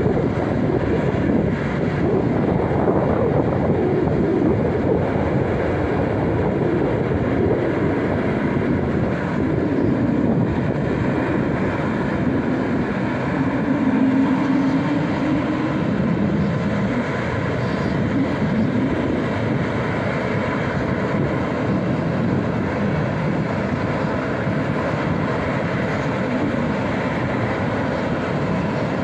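Airbus A220-300's Pratt & Whitney PW1500G turbofan engines running steadily at idle, a continuous jet-engine noise with no change in power.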